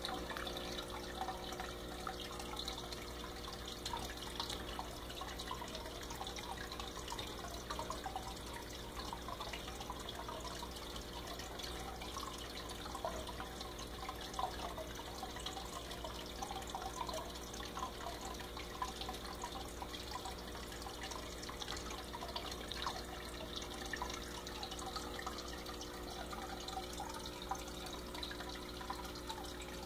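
Aquarium filter running: steady trickling and bubbling of water with a constant low pump hum underneath.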